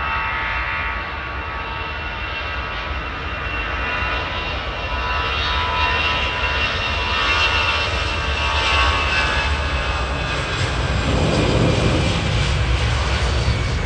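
Jet airliner engines running with a steady whine over a rushing noise, growing louder, with a deep rumble swelling near the end.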